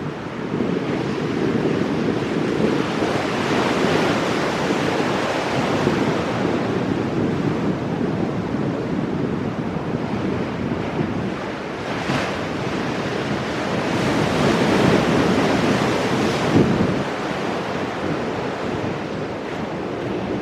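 Ocean surf breaking and washing over shoreline rocks. It makes a continuous rush of water that swells several times as waves come in, most strongly in the second half.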